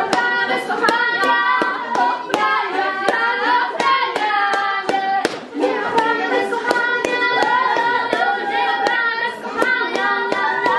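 Voices singing together, with sharp hand claps a few times a second.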